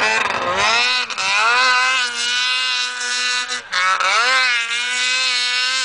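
Snowmobile engine running at high revs, holding a steady high pitch. The throttle is eased off briefly about a second in and again near four seconds, then opened back up.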